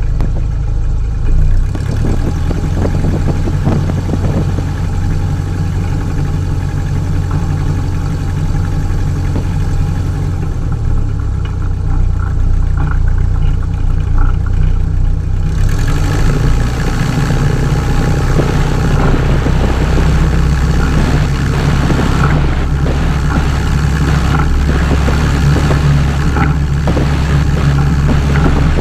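Light tailwheel airplane's piston engine and propeller running steadily while it taxis. About fifteen seconds in, the engine sound gets louder and fuller as power comes up for a high-speed taxi down the runway.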